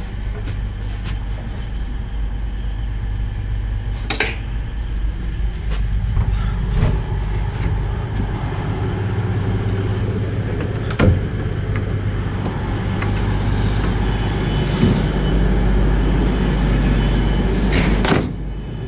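Train carriage slam door being opened from outside: the droplight window lowered and the outside handle worked, giving several sharp clunks and knocks, over the steady low hum of the train standing at the platform. A high-pitched ringing tone sounds in the last few seconds.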